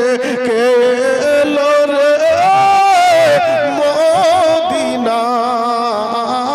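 A man singing a Bengali devotional song (gojol) through a microphone and PA, drawing out long, ornamented notes that waver and glide in pitch, without clear words.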